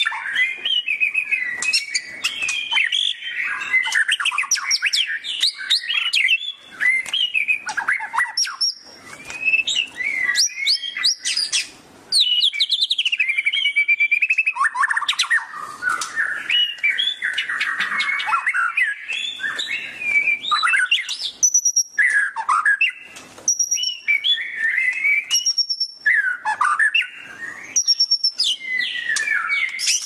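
White-rumped shama (murai batu) singing continuously: a long, varied run of rich whistles, quick trills and sweeping notes in rapid phrases, broken by a few short pauses. Near the end come high, brief whistled notes.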